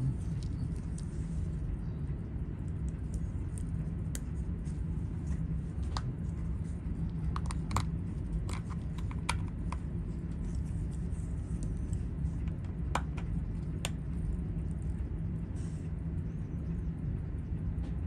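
Scattered faint clicks of small metal tools handling a Seiko 6139 watch during disassembly, over a steady low hum of amplified background noise.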